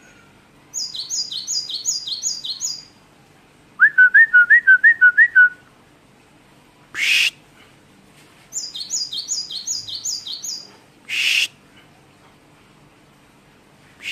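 Caged cinereous tit (gelatik batu) singing varied phrases: fast trills of high double notes, a loud quick run of about nine rising whistled notes, and short harsh rasping notes in between.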